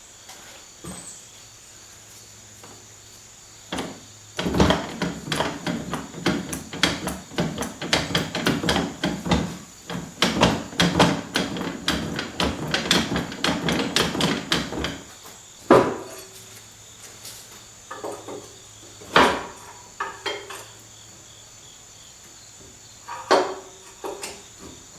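Metal workshop tool noise: about ten seconds of rapid, irregular clattering and clicking of tools on metal, then three single sharp knocks, over a faint steady hum.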